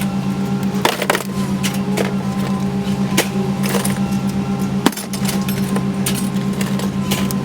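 Pieces of aluminum scrap clanking and clattering as they are unloaded, a sharp clank about five seconds in the loudest, over a steady low engine-like hum.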